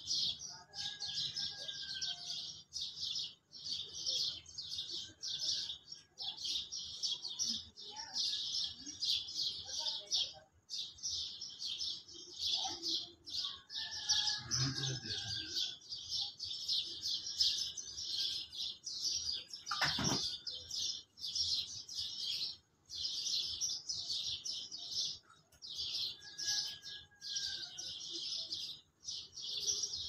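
Dawn chorus of many small birds chirping densely in rapid, overlapping bouts, with an occasional lower whistled note and one sharp click about twenty seconds in.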